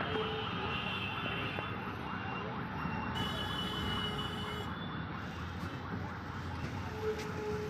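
Dense road traffic at a congested city junction: engines running under a constant din, with vehicle horns sounding again and again over it.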